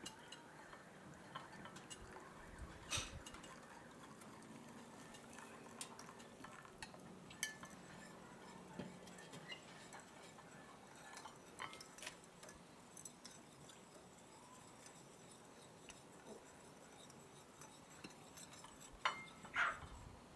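Dishes clinking as small bowls, a teapot and a plate are set down and moved about on a stone table: scattered light clinks and taps, with two louder clinks close together near the end.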